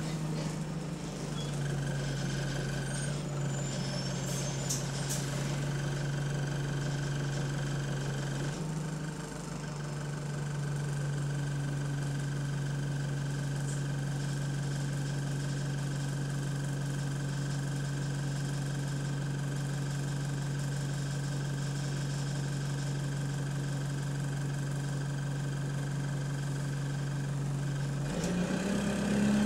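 Bus diesel engine idling steadily, heard from inside the passenger cabin, with its exhaust burst. Near the end the engine note rises and gets louder as the bus pulls away.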